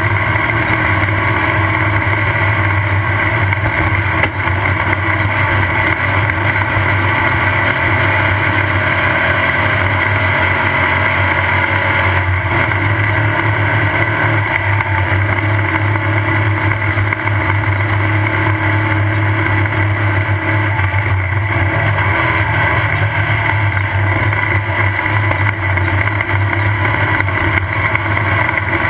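Off-road race car's engine running hard and steady at full race pace, with a constant clatter and knocking of the chassis over rough ground, heard from on board.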